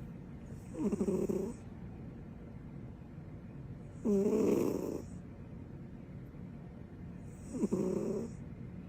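Sleeping cat snoring: three short snores about three and a half seconds apart, each lasting under a second.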